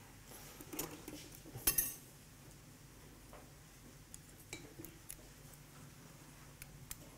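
Metal surgical instruments clinking together twice, about a second in and again just before two seconds, the second clink the loudest and ringing briefly. A few faint clicks of handling follow.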